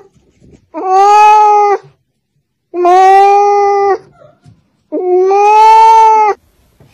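A domestic cat giving three long, drawn-out meows, each lasting over a second, with short pauses between them.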